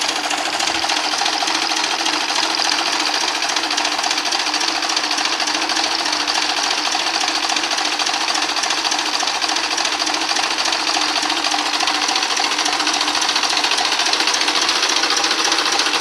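Belarus 892 tractor's diesel engine idling with a steady, fast clatter.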